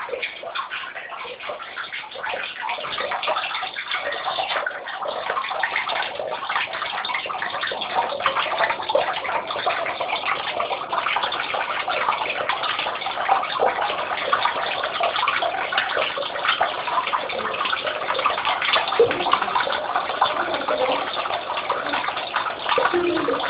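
Koi splashing and slurping at the surface of a pond as they crowd a hand to feed. The water sloshes steadily, with many small splashes and pops.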